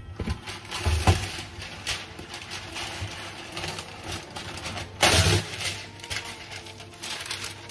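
Baking parchment paper rustling and crinkling as a sheet is handled and torn off for an oven tray, with louder bumps about a second in and about five seconds in.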